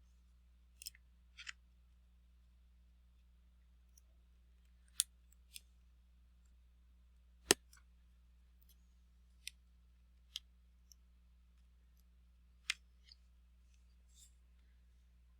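Scattered small, sharp clicks and taps from handling small tools and phone parts, about a dozen at irregular intervals with the sharpest about halfway through, over a faint steady low hum.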